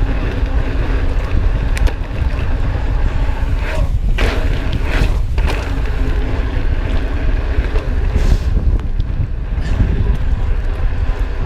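Wind buffeting the microphone of a chest-mounted GoPro on a moving mountain bike: a loud, steady low rumble, with a few short rattles about four to five seconds in.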